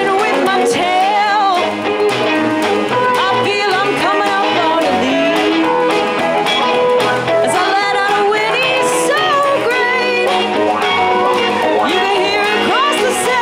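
Live band music: a woman singing lead over guitar and electric bass.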